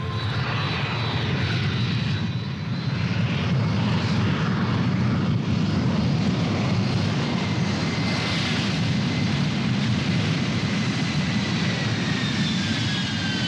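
Ilyushin Il-62 jet airliner's four rear-mounted jet engines running during its landing roll on a grass strip: a steady rush of engine noise with high whining tones that slide down in pitch near the end as the engines wind down.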